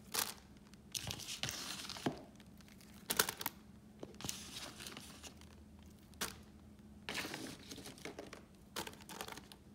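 Plastic slow-cooker liner crinkling and rustling in short, irregular bursts as a hand handles the vegetable pieces inside it.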